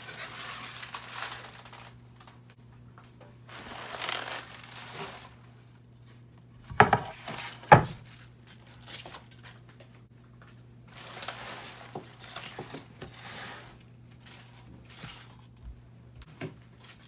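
Rustling and crinkling in several stretches as a bundle of collard greens is handled on the counter, with two sharp knocks about a second apart midway. A steady low hum sits underneath.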